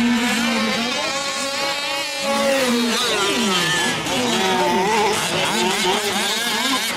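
Several 1/5-scale RC trucks' small two-stroke gas engines running at once, each one's pitch sweeping up and down as the throttle opens and closes.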